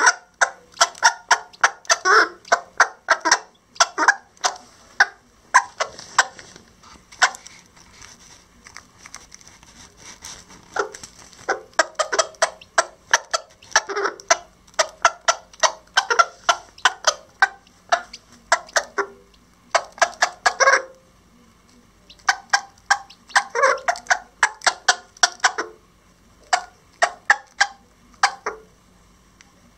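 Mother hen clucking in quick runs of short notes, the clucking call she uses to bring her chicks to food, broken by a few short pauses.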